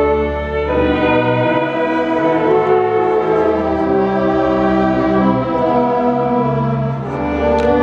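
Slow orchestral church music with strings: held chords that change every second or so.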